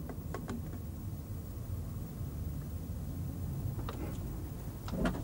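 Low, steady background rumble and hiss, with a few faint taps near the start and a small cluster of them near the end.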